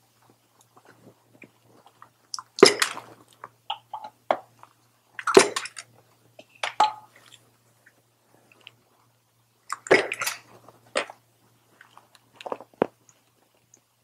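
Ignition coil packs being worked loose and pulled from the spark plug wells of a VW 2.0T TSI engine by hand: about six separate bursts of short plastic clicks and rubbing noises, with quiet gaps between them.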